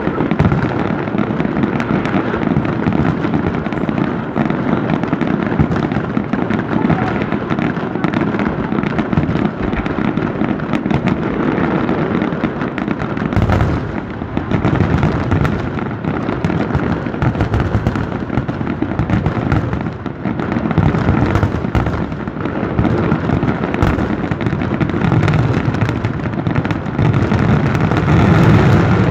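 Aerial fireworks shells bursting in quick succession: a dense, unbroken run of booms and crackling, with heavier booms about halfway through and near the end.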